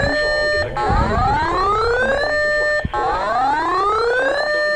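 Electronic siren-style alarm tone that rises in pitch for about a second and a half, holds at the top briefly, then drops back and repeats, about every two seconds.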